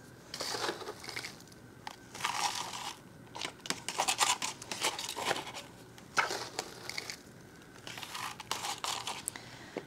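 Chunky potting mix of perlite and bark being scooped by hand and dropped into a clear plastic nursery pot, giving irregular crackling and rustling in short bursts with brief pauses.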